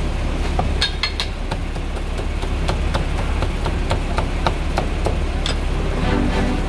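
Chinese cleaver chopping char siu on a thick round wooden chopping block: a steady run of sharp knocks, about two to three a second, over a constant low hum. A voice or music comes in near the end.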